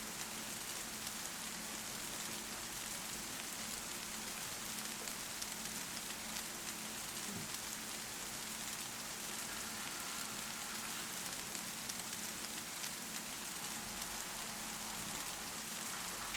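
Steady rain falling on a surface, a dense even patter of many drops with no let-up.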